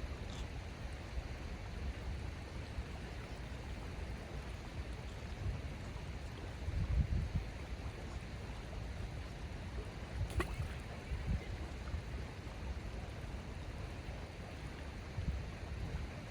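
Outdoor ambience of moving water, a steady low rush, with gusts of wind buffeting the microphone.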